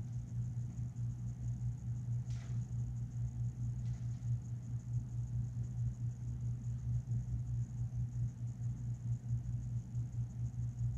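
Steady low hum of running equipment, with two faint, brief hiss-like sounds about two and four seconds in.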